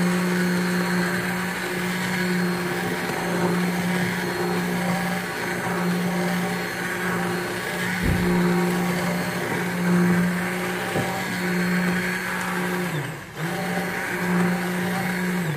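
Hand-held immersion blender running steadily in a steel pot of cooked zucchini soup, puréeing it, with one low knock about halfway through. The motor dips briefly near the end, picks up again, then cuts off.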